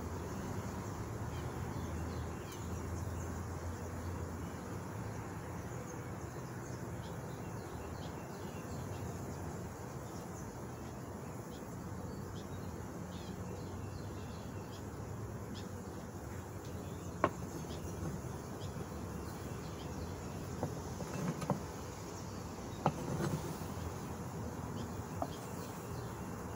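Honey bees buzzing steadily around an open, crowded nuc hive, a low continuous hum. A few sharp knocks come in the second half.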